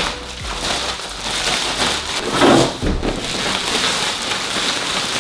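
Plastic and foam packaging rustling and scraping as a computer monitor is worked out of its box, with a dull thump nearly three seconds in.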